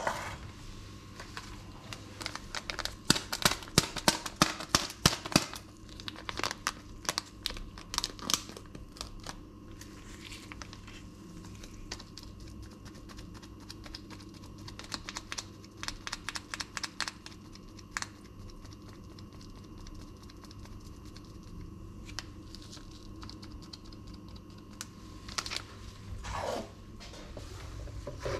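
A small paper sachet being handled, torn open and crinkled by nitrile-gloved hands, heard as a dense run of sharp crackles and clicks for several seconds, then sparser rustles and ticks. A faint steady hum sits underneath.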